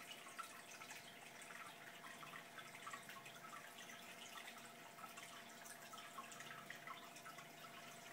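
Faint aquarium water sounds: a soft trickle with many small, irregular drips and plinks, over a faint steady hum.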